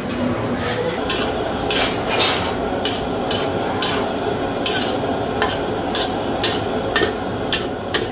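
Muscovy duck innards and green beans sizzling in a pan while a spatula stirs and scrapes through them, about two scrapes a second.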